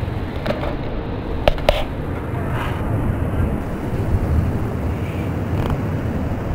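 Wind buffeting the microphone over the steady wash of ocean surf, with a few sharp clicks, the loudest about a second and a half in.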